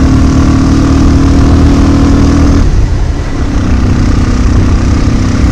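Motorcycle engine running steadily under way, over a heavy low rumble. Its note drops out about two and a half seconds in, then comes back about a second later.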